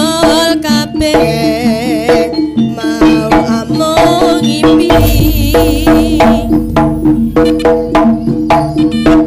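Live jaranan gamelan music: kendang drums beating a fast, dense rhythm under steady gong and kenong tones, with a reed pipe playing a wavering melody over the top. A deep low boom comes in about halfway through.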